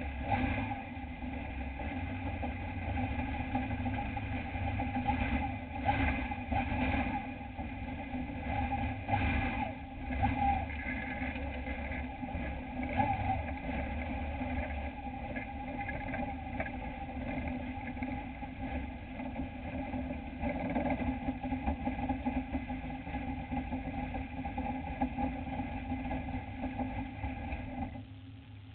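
Dirt-track race truck's engine idling steadily, heard from inside the cab, with a few short surges in the first ten seconds; it stops abruptly near the end.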